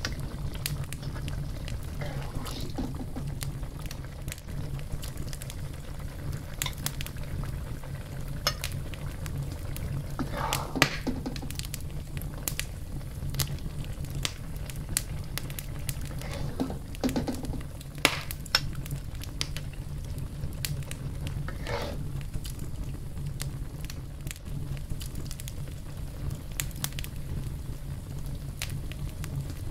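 Fish and squid curry simmering in a wok, with scattered small pops and a few brief utensil scrapes, over a steady low hum.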